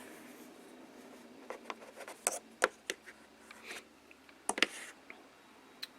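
Handling noise from small vinyl toy figures being picked up and set down: a scatter of light clicks and taps, with a quick cluster of them a little past the middle.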